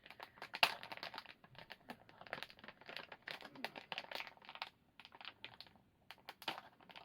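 Plastic mystery-packet wrapping crinkling and crackling as it is twisted and pulled at in a struggle to tear it open by hand, with one sharper crackle a little over half a second in.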